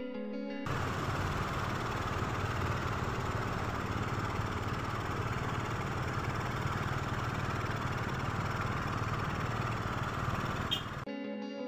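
Motorcycle engine running as the bike rides slowly through shallow floodwater: a steady, noisy rumble. Guitar music plays in the first moment and comes back near the end.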